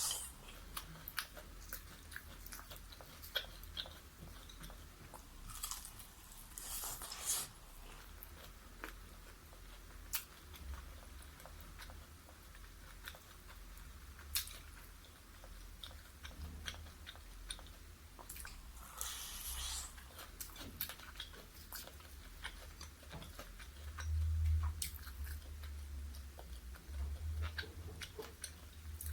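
Close-miked biting and chewing of crispy fried chicken, the battered skin crunching and crackling in irregular bursts.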